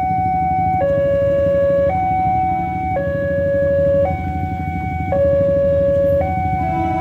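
Railroad level-crossing warning alarm sounding a two-tone hi-lo signal, the pitch switching about once a second, which warns of an approaching train while the barriers are down. Idling motorcycle engines rumble beneath it.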